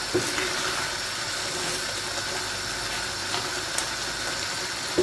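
Beef liver in sour cream sauce simmering in a frying pan with a steady hiss, stirred with a wooden spatula, with a few light taps of the spatula against the pan.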